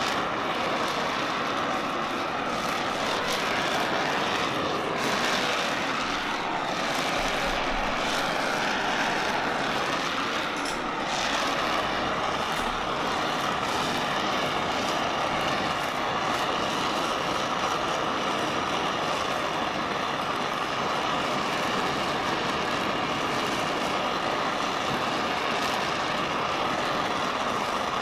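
Oxy-fuel welding torch flame burning with a steady hiss as it heats a cast iron casting up to brazing temperature.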